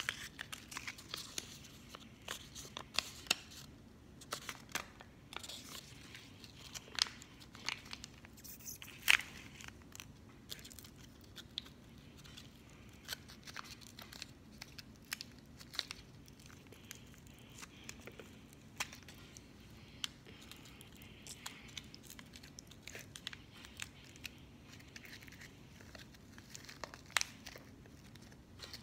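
Small toy wrapper being crinkled and torn open by hand, with scattered sharp crackles and clicks; the loudest crack comes about nine seconds in.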